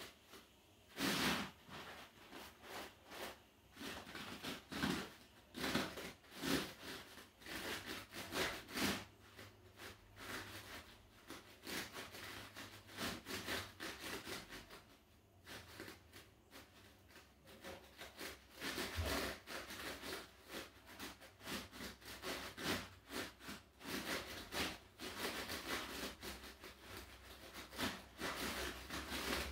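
A person exercising barefoot on an inflatable rubber balance disc: a train of short noisy sounds of movement and breath, about one or two a second, with a brief pause about halfway.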